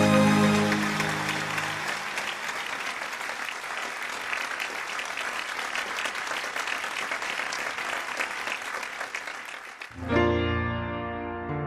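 Audience applause and clapping following a song's final held note, which fades out within the first second or two. Piano music starts about ten seconds in.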